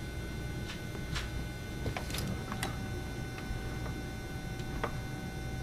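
A few faint, irregular creaks and sharp clicks over a steady hum: something under strain creaking more and more, which is expected to give way and come down.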